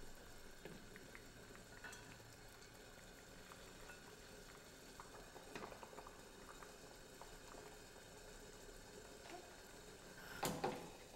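Pho broth simmering faintly in an enamelled pot on a gas burner, with soft bubbling and small taps of a plastic ladle as broth is scooped out. There is a louder clatter about ten and a half seconds in.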